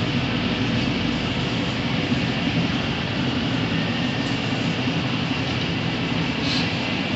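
DoAll Model 60-3 vertical contour bandsaw running, a steady hum and whir from its drive and moving blade.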